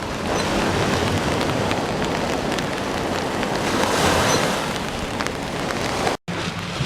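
Wind rushing over the microphone and choppy water washing and splashing, a steady rough noise broken by a brief dead gap near the end.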